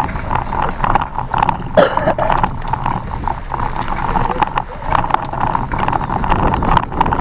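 Bicycle riding over a rough offroad trail: the bike rattles and knocks many times over the bumps, with wind rumbling on the microphone.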